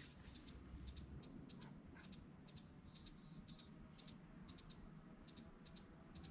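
Near silence with faint, short, high clicks repeating about two to three times a second.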